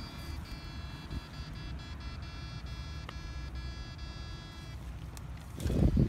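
Steady high-pitched electronic whine of a portable electrofishing shocker over a low rumble. The whine cuts off about three quarters of the way through, and a loud, rough low noise starts near the end.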